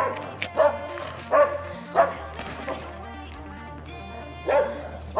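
A dog barking in short, sharp yips, about five of them, with a pause of about two seconds before the last one, over background music with a steady low drone.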